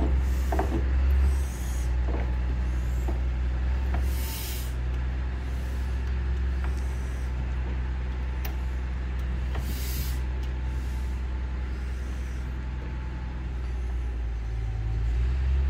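1915 Climax geared steam locomotive working: a steady low rumble, with two short sharp hisses, about four and ten seconds in.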